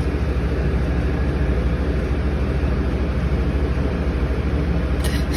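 A steady low droning hum with a fine, even pulsing.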